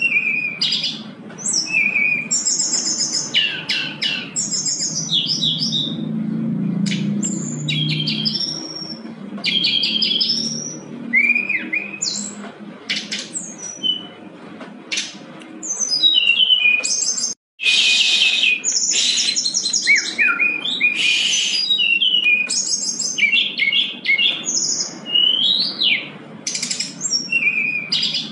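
Caged brown-chested jungle flycatcher singing a long, varied song of high whistles, slurred glides and fast runs of repeated notes with hardly a pause. Its song breaks off abruptly for a moment a little past halfway.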